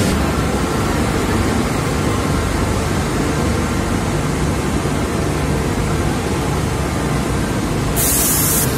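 Steady din of sugar mill machinery running, a dense even noise with a low hum beneath it. A short high hiss cuts in about eight seconds in.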